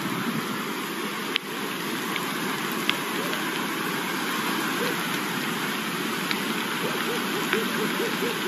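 Fast, swollen river running over rocks: a steady rush of water. A couple of sharp clicks stand out, about a second and a half in and again about three seconds in.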